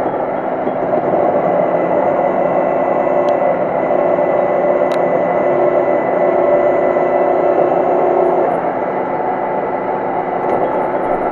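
A metal lathe runs, spinning a 722.9 automatic-transmission torque converter in its chuck while the cutting tool works the converter's casing. This is the machining step that opens the welded converter shell for repair. The noise is steady, with a thin high tone, and there are two sharp clicks a few seconds in.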